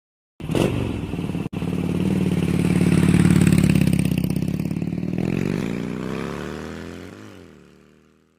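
An engine sound effect that starts abruptly, runs with a fine rhythmic pulse and a low steady pitch, then wavers up and down in pitch near the end and fades out.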